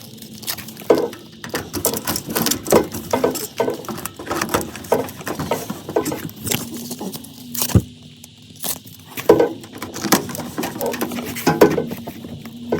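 Mastic tape being pulled off its roll and pressed around a sheet-metal duct joint to seal it against air loss: an irregular run of crackles, scrapes and sharp clicks, with a faint steady hum underneath.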